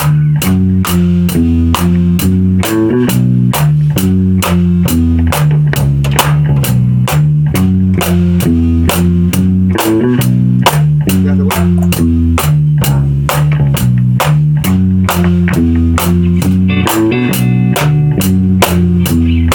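Live jam: a drum kit keeps a steady beat under a repeating bass-guitar line and guitar, the kind of layered, repeated parts built with a loop pedal. A higher guitar line comes in near the end.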